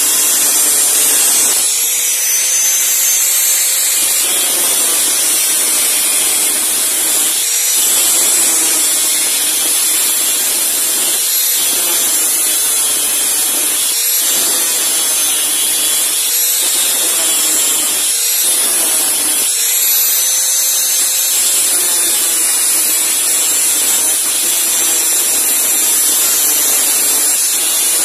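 Angle grinder cutting through the steel blade of a cane machete, a steady loud grinding with a high motor whine. Every few seconds the cut eases for a moment and the whine rises again.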